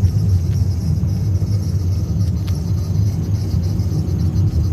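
A car on the move: a steady low rumble with a thin, steady high-pitched whistle above it.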